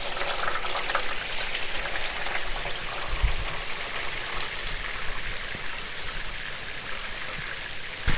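Hose-fed water running down metal rain chains and dripping and splashing off them: a steady trickling and spattering. With five chains hung close together, most of the water clings to the chains.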